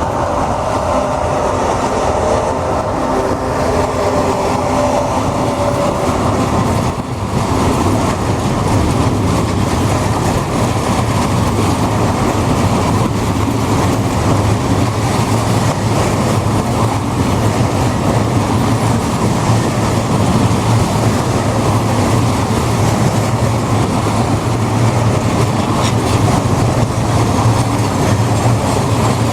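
Freight block train of four-axle Eas open wagons rolling slowly past, wheels running over the rails and crossover points, with a steady low hum. A wavering whine sounds for the first several seconds and stops about seven seconds in.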